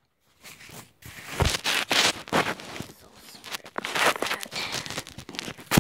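Plastic packaging rustling and crinkling as it is handled, in irregular noisy bursts, with a short sharp click near the end.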